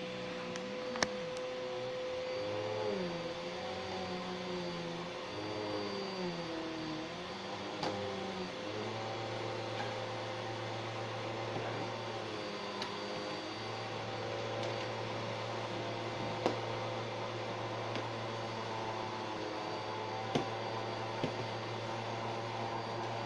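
Vacuum cleaner running with a steady motor hum. Its pitch wavers for the first several seconds, then holds steady. A few sharp knocks fall within it.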